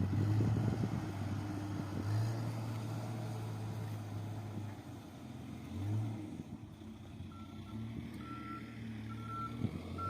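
Construction machine's engine running with a low, steady drone. From about seven seconds in, its reversing alarm beeps at an even pace, a little more than one beep a second.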